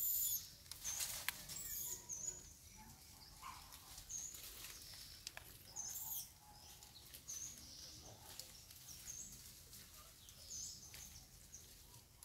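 Short, high-pitched chirps repeated irregularly, well over a dozen, from a small animal caller. A few sharp clicks and rustles in the first two seconds are the loudest sounds.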